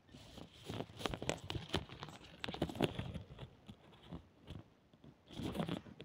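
Irregular crunching and crackling rustle of garden plants and leaves being moved through.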